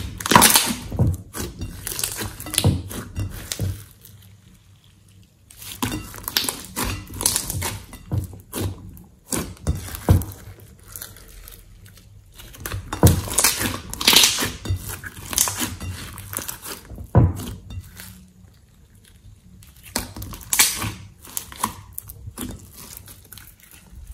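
Thick slime being squeezed, pressed and stretched by hand, giving wet squelches and rapid little clicks and pops. The clicks and pops come in four spells with short pauses between them.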